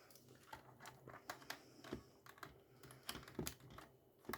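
Faint, irregular light clicks and taps of a vacuum battery pack being handled and fitted back into a cordless stick vacuum.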